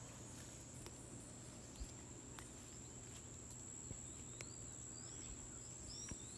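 Outdoor rural ambience: a steady, high-pitched insect trill with a few short, faint bird chirps in the second half.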